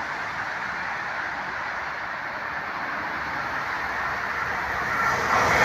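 Hull Trains Class 802 bi-mode train approaching through the station at speed, a steady rushing rail and engine noise that swells louder near the end as it draws close.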